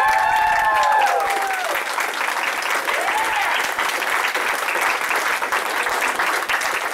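A small audience clapping steadily after a dance, with a few voices whooping and cheering in the first second or two.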